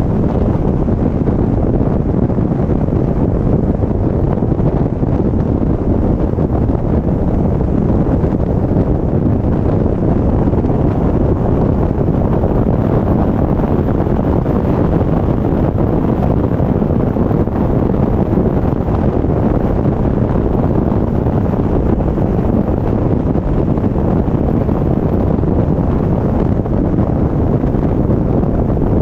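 Wind rushing over the microphone of a camera mounted on the roof of a car moving at highway speed: a steady, deep rushing noise without a break.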